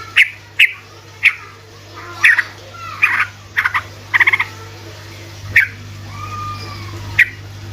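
Yellow-vented bulbul (trucukan) calling: a string of short, sharp chirps, a quick stuttering trill about four seconds in, and a slurred whistled note near the end.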